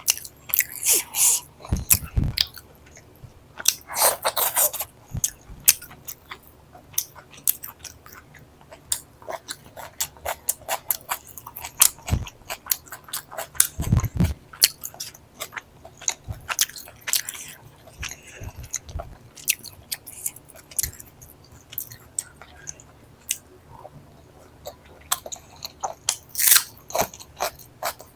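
Close-up eating sounds: a person chewing with the mouth open, with many quick wet clicks and smacks, and a few louder crunchy bites. The food is chicken korma scooped up with roti.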